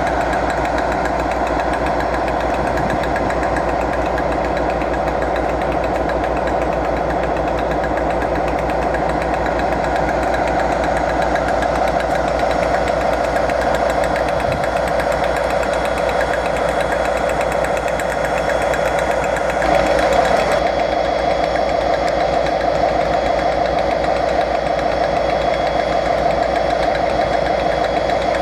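Diesel locomotive engine idling with a steady throb, briefly louder about two-thirds of the way through.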